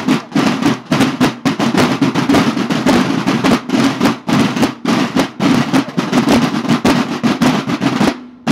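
Several marching snare drums of a war band playing a fast march cadence together, dense with strokes and rolls. The drumming stops together shortly before the end, with one last stroke.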